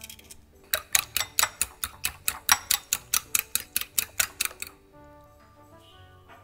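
A metal fork beating eggs in a glass bowl, clinking against the glass about four to five times a second for around four seconds, then stopping.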